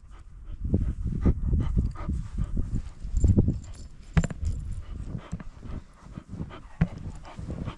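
Footsteps crunching and thudding through deep, soft snow, a few steps a second, heaviest in the first half, with a sharper knock about four seconds in and another near the end.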